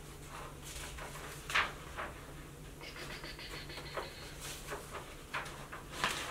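Soft scattered clicks and rustles from handling a phone and a paper manual, over a steady low hum; a faint thin tone sounds briefly in the middle.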